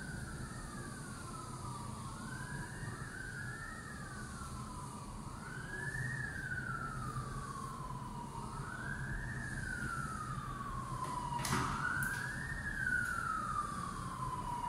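Emergency vehicle siren wailing, slowly rising and falling in pitch about every three seconds. A single sharp click comes about two-thirds of the way through.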